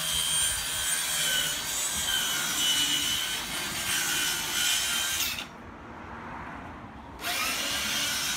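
Power saw cutting 9mm marine plywood, its motor whine wavering as the blade works through the sheet. The cut pauses for about two seconds near the end, then the saw starts again.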